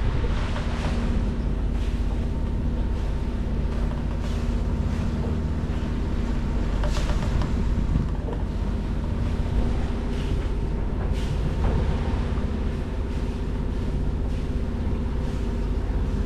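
A sailing yacht's Volkswagen 140 hp marine diesel engine running steadily at cruising revs of about 1,800–2,000 RPM, with wind and sea noise over it.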